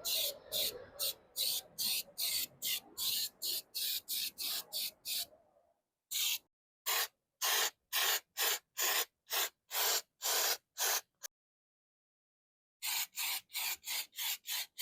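Aerosol spray can sprayed in short hissing bursts, about two or three a second. The bursts stop for about a second and a half near the end, then start again.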